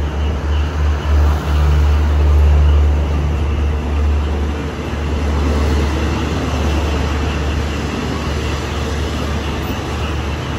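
Passenger train coaches rolling past the platform: a steady low drone under wheel-on-rail rumble, loudest in the first few seconds.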